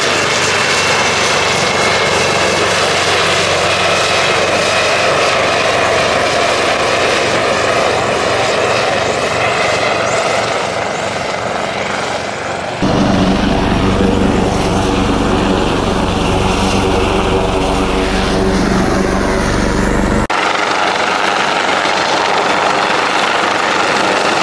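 Coastguard AgustaWestland AW189 twin-turbine helicopter flying close by, its rotors and engines making a loud, steady noise. The sound changes abruptly to a deeper, heavier one about halfway through, then switches back a few seconds later.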